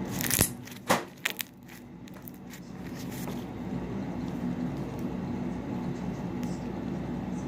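A few sharp knocks or clicks in the first second and a half, then a steady low hum.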